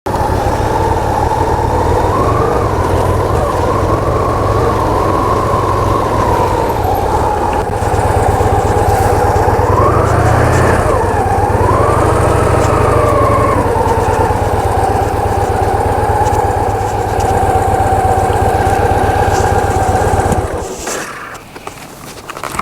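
Motorcycle engine running, its pitch rising and falling a little past ten seconds in, then cutting off near the end.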